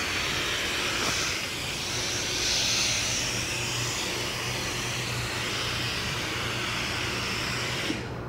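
Compressed-air gravity-feed spray gun spraying in a steady hiss, which cuts off about eight seconds in when the trigger is released. A low steady hum runs underneath.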